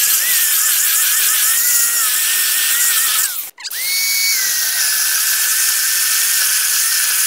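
Corded electric chainsaw cutting into a thick log, a steady high whine that sits lower in pitch while the chain is in the wood. About three and a half seconds in it stops for an instant and starts again, first rising to a higher pitch, then dropping back as it bites into the cut.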